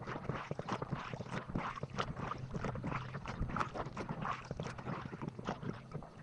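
Quick, irregular light clicks and knocks, several a second, of gear and hands working in a small fishing boat.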